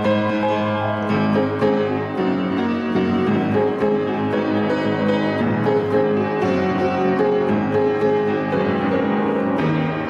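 Piano music: many sustained notes layered over one another, with new notes struck throughout.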